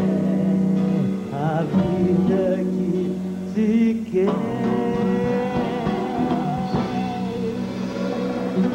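A woman singing a Brazilian song live into a microphone, holding long notes, with nylon-string acoustic guitar accompaniment and a small band behind her.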